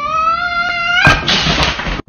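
Domestic cat's long yowl, rising steadily in pitch and then holding high; about a second in it breaks off into a sudden loud, rough burst of noise as the cat lunges at a plush toy.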